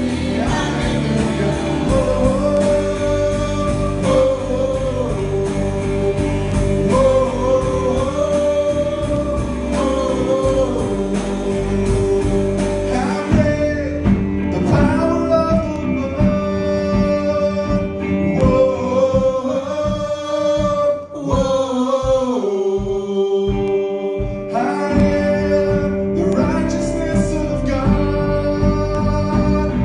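A gospel worship song: a singing voice holding long, wavering notes over steady instrumental accompaniment, with a few evenly spaced low beats about two-thirds of the way through.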